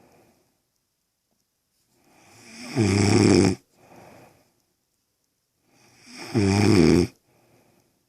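A woman snoring in her sleep: two loud snores about three and a half seconds apart, each building up over a second or so and followed by a short, softer breath.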